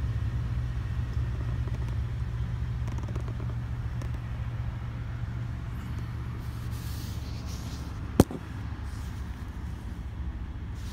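Steady low hum of the Toyota Tundra pickup idling, heard inside the cab. A single sharp click about eight seconds in.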